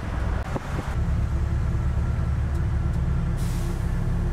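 Steady low engine and road rumble of a moving car, heard from inside the cabin. About three and a half seconds in, a hiss joins in higher up.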